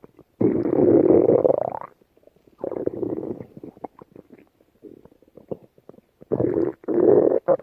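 Stomach growling. A long rumble starts about half a second in and rises in pitch at its end. A shorter rumble follows, then scattered small gurgles, and two more rumbles near the end.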